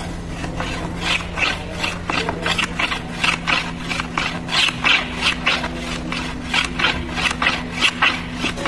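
Metal hand plane worked in quick short strokes along the edge of a board, each stroke a brief rasp of the blade cutting a shaving, about two to three a second, starting about a second in. A steady low hum runs underneath.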